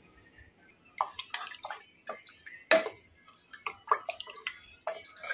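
A wooden spatula stirring thick chickpea curry in a pressure cooker. Starting about a second in, it makes an irregular run of wet sloshes and squelches, with light knocks against the pot.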